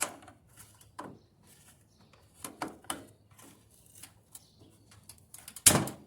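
Scattered clicks, taps and knocks of a plastic piece being pressed into place on a dryer's drum support, with a louder knock near the end.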